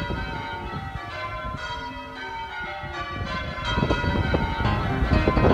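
Church bells ringing, many strikes of different pitches overlapping and ringing on, growing louder about two-thirds of the way through.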